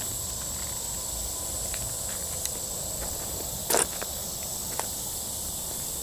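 Steady high-pitched trill of crickets, with a few short scuffs and clicks, the loudest about three and a half seconds in.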